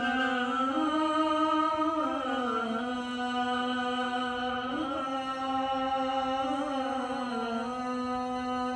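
A single voice chanting in long held notes that slide slowly up and down in pitch, with no beat behind it.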